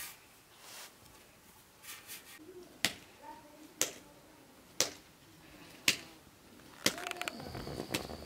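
Soft dough patted and slapped between the palms as it is shaped into a ball, a sharp pat about once a second, six times.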